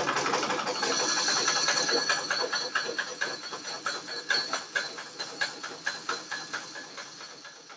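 Treadle-powered manual sewing machine running to wind thread onto a bobbin, a rapid run of mechanical clicks with a thin high whine joining about a second in. The clicks spread out and fade as the machine slows toward the end.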